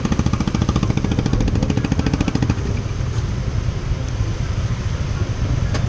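Motor scooter engine running on the move, with a fast, even pulsing beat that drops back about two and a half seconds in, leaving a steadier rush of road and wind noise.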